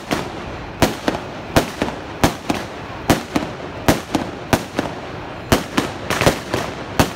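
Aerial fireworks bursting overhead: a rapid, irregular string of sharp bangs, two or three a second, over a steady crackling hiss.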